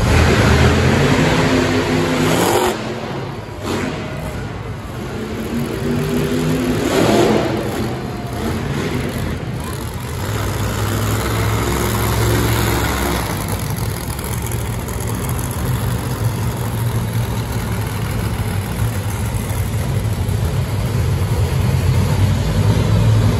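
Monster truck engines running and revving, the revs rising and falling several times as the trucks drive across the arena floor.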